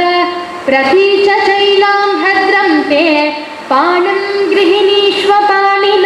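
A girl's voice singing a Sanskrit verse from the Ramayana in long held notes with melodic turns, breaking off for short breaths twice.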